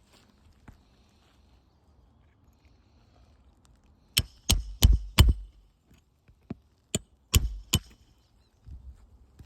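Hammer striking a roof snake to drive roofing nails back in under a lifted asphalt shingle tab: four quick, sharp blows partway through, then three more about a second later.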